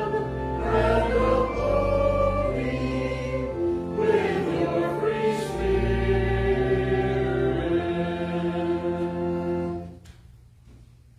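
A hymn sung by a group of voices over sustained low accompaniment, changing chords every second or so. It ends on a long held chord that stops about ten seconds in.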